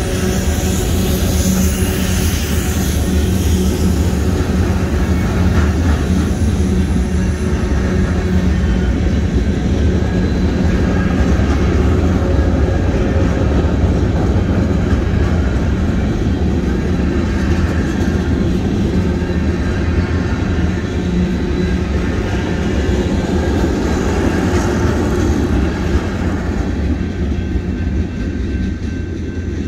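Union Pacific mixed freight train rolling through a grade crossing: a steady, loud rumble of the cars passing, easing off near the end as the last cars go by.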